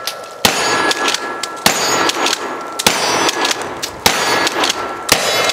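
12-gauge Armscor M5 pump-action shotgun firing 2¾-inch nine-pellet buckshot in rapid succession: five shots a little over a second apart, each ringing out afterward, with the clack of the pump being worked between shots.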